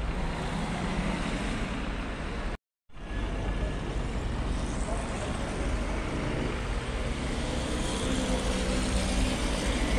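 Street traffic noise: a steady low rumble of cars, with faint voices. The sound cuts out briefly about two and a half seconds in.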